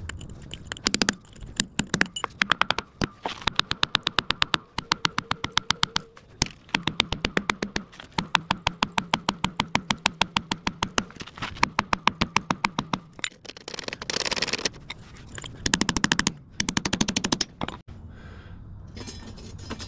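Hand hammer striking a steel punch in quick, steady blows, several a second with short pauses, driving a rusted wedge ring out of a 100-year-old Dayton-style wheel rim so the wheel can come off the hub.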